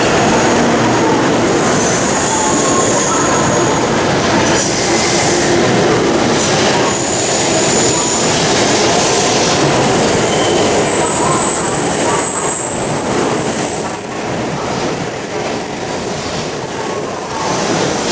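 Shinkansen bullet train moving along the platform, with a steady loud rushing noise and high thin squeals from the wheels and brakes. The noise eases off after about 14 seconds as the train slows.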